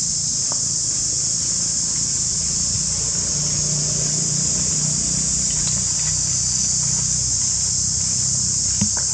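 A chorus of insects keeps up a steady, high-pitched drone. Under it runs a low, steady hum, and there is one faint click close to the end.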